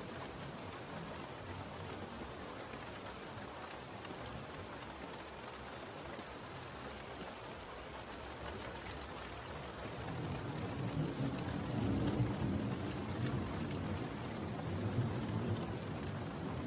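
Steady rain falling as an even hiss; about ten seconds in, a low rumble swells up under it and lasts several seconds.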